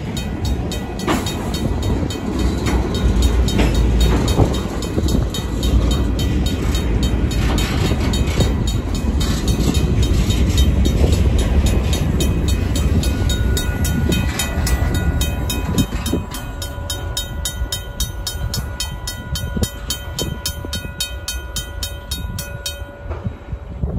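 Freight cars rolling over the crossing, a heavy low rumble with wheel clicks that eases off as the last covered hopper passes about halfway through. Through it a grade-crossing's RACO mechanical bell rings with fast, even strokes, stopping about a second before the end.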